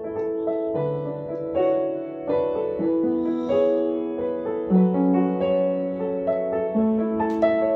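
Slow, gentle piano music: held notes and chords that change about once a second.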